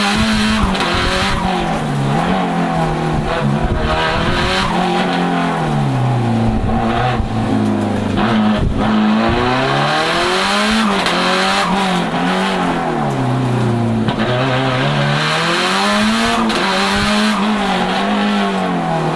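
Tuned, turbocharged four-cylinder engine of a Lancia Delta HF Integrale Evo 2 race car being driven hard. Its pitch climbs and falls again and again as the car accelerates and lifts off between slalom turns.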